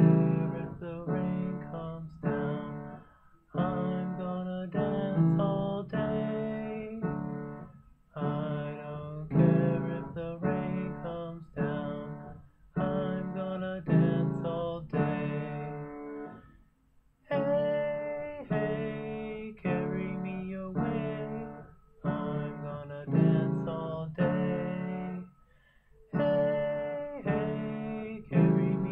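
Acoustic guitar strumming chords in phrases a few seconds long, each starting sharply and ringing out to fade, with short gaps between them: a simple folk-song accompaniment.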